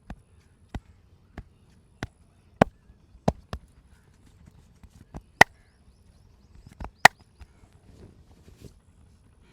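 A run of sharp hand slaps striking the body in a massage: evenly spaced at first, about one every two-thirds of a second, then fewer and further apart, the two loudest coming in the second half.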